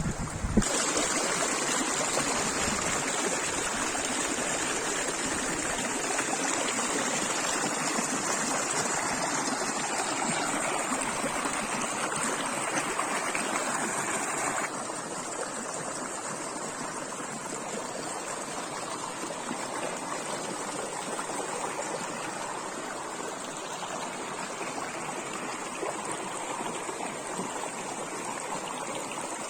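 Water flowing in a stream: a steady, even rush. The level drops a step about halfway through.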